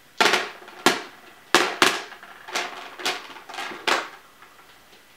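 Large fake diamonds dropping one after another onto the bottom of a clear display case, making about eight loud, sharp clicks at uneven intervals.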